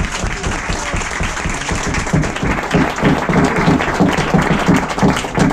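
A small group applauding and cheering in a cramped wooden cabin. About two seconds in, a rhythmic low thumping joins the clapping, roughly two to three beats a second.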